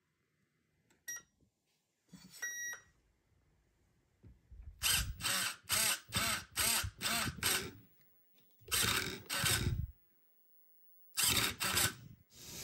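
Metal-gear digital steering servo of an RC drift car whirring in short bursts as it swings the front wheels from side to side: a run of about six quick sweeps, then two, then three. A click and a short electronic beep come first.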